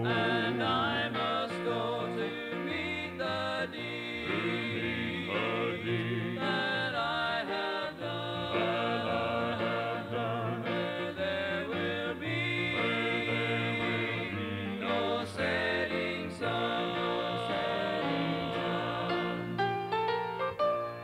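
Gospel vocal group singing a hymn in harmony with backing music, played from a 1983 cassette tape. The recording sounds dull, with no upper treble.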